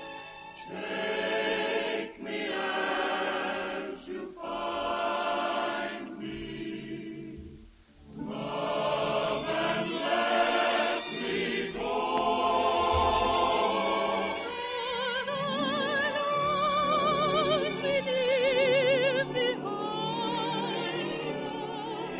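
Choir and operatic voices singing with strong vibrato in long phrases, with a brief break about eight seconds in. The sound is dull and narrow, with the top end missing, as on an old radio broadcast recording.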